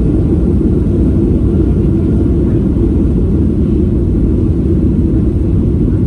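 Steady low rumble of a Boeing 737 airliner heard from inside the passenger cabin, with engine and airflow noise during the landing.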